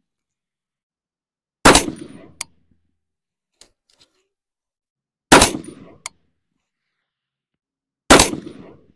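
Three shots from a Knight's Armament SR-25 semi-automatic .308 match rifle, fired about three seconds apart, each with a short echoing tail. A short sharp click follows each shot.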